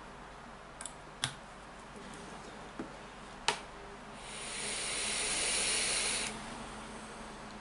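Vaping: a few sharp clicks, then a hiss of drawn air and vapour about two seconds long that swells gradually and cuts off suddenly.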